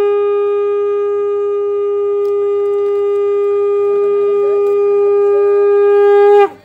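Conch shell (shankh) blown in one long, steady note. It sags in pitch and stops near the end.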